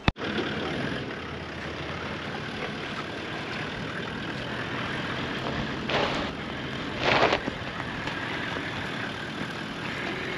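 Toyota LandCruiser's engine running steadily as it tows an off-road caravan along a dirt track, with two brief louder rushes about six and seven seconds in.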